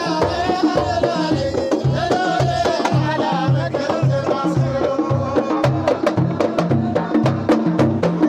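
Samri folk music: singing over a steady beat of low hand-drum strokes, with sharp percussive strikes coming in thick and fast from about halfway through.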